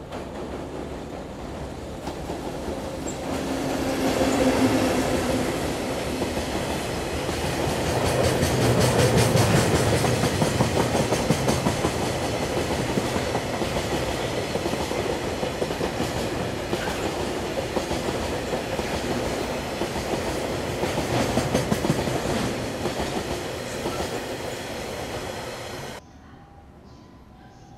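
Freight train of tank wagons hauled by an EF65 electric locomotive crossing a steel truss railway bridge: a steady rush of wheels on rail with rapid clickety-clack as the wheels pass over the rail joints, rising as the locomotive comes close. The sound cuts off abruptly near the end.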